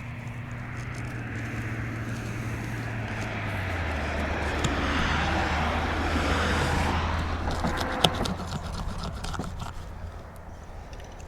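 A motor vehicle passing by: a low engine hum and a wash of noise that swell, peak a few seconds in, then fade away. A sharp click comes about eight seconds in, followed by a few lighter clicks.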